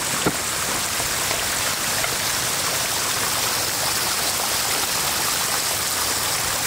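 Floodwater pouring over the broken edge of a road and running across the mud: a steady rush of water. A sharp knock sounds right at the start.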